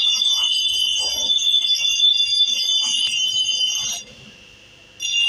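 Steel hatchet head being sharpened on a bench grinder: a steady, high-pitched screech of the blade against the spinning abrasive wheel. It cuts out for about a second near the end, then resumes.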